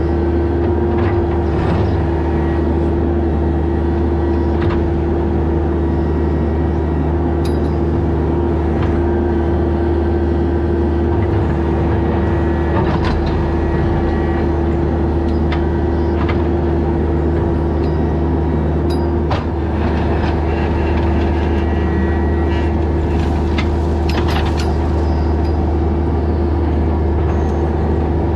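Mini excavator's diesel engine running steadily under work, with scattered short clanks and knocks from the machine.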